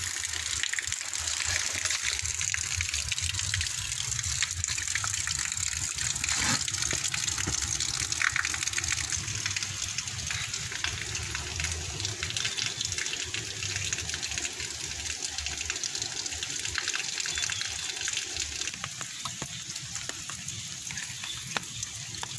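Muddy water flowing fast along a narrow concrete drain: a steady splashing hiss of running water, easing off a little near the end.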